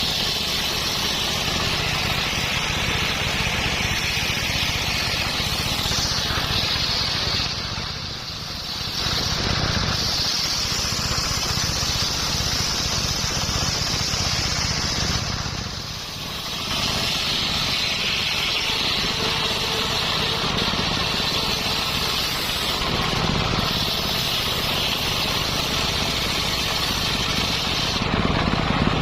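Engine-driven circular sawmill blade cutting coconut palm (glugu) wood: a steady engine drone under a loud high whine from the blade, which eases off briefly twice, about a third and halfway in.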